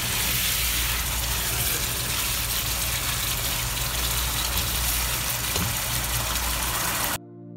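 Chicken in a thick yogurt masala sizzling and bubbling hard on high heat in a nonstick pan as it is stirred with a spatula, over a steady low hum. The sizzle cuts off abruptly about seven seconds in, and quiet music takes over.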